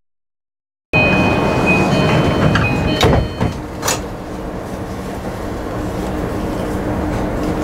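JR East E235-1000 series electric train at a platform, a second of silence at the start: high steady electrical tones from its Mitsubishi SiC-VVVF inverter as it comes to a stop, two short sharp sounds about a second apart, then a steady low hum as it stands.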